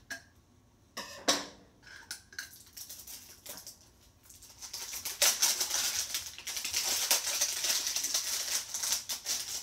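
Scissors snipping a few times, then crinkly plastic wrapping crackling for several seconds as it is pulled off an ultrasonic diffuser.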